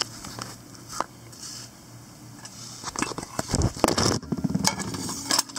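Clatter of a metal utensil scraping in a tub of butter and clinking, then a busier run of clinks, scrapes and low knocks against a steel frying pan from about three seconds in.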